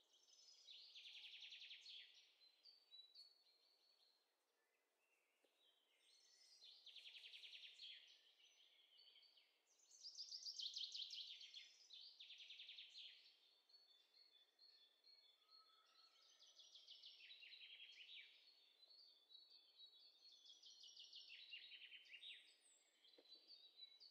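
Faint songbird singing: a rapid trilling phrase about a second or two long, repeated every few seconds, with a few short, clear whistled notes between phrases.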